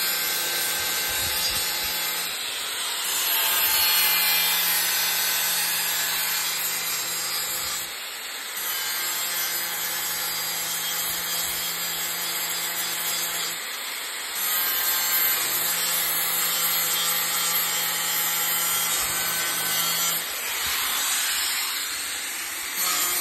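Electric angle grinder grinding down weld seams on a steel trunk pan: a continuous grinding rasp over the motor's steady hum, its loudness shifting every few seconds. The welds are being ground smooth back to the panel's original shape.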